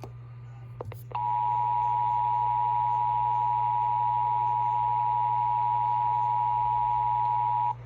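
Emergency Alert System two-tone attention signal: a steady dual tone just under 1 kHz (the 853 and 960 Hz pair) starting about a second in and cutting off sharply near the end, the alert sound that introduces a severe thunderstorm warning. A faint low hum runs underneath.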